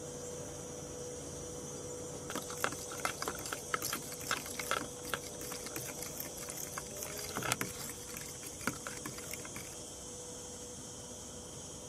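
A hand stirring water and olive oil in a plastic bucket to dissolve fresh yeast: irregular sloshing and splashing of the liquid from about two seconds in until near the end, over a steady high background hiss.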